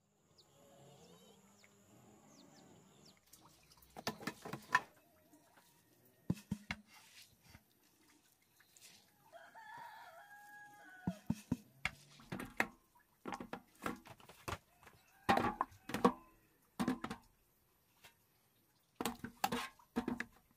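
A rooster crowing once, about halfway through, among clusters of sharp knocks that are the loudest sounds.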